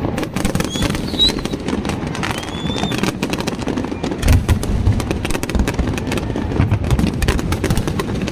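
Fireworks display: a dense crackle of sharp pops, with deeper booms about four and six and a half seconds in.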